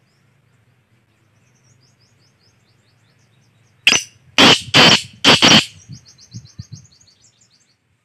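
Male black francolin calling: four loud notes in quick succession about four seconds in, trailing off into a few fainter notes. Small birds chirp faintly and rapidly in the background.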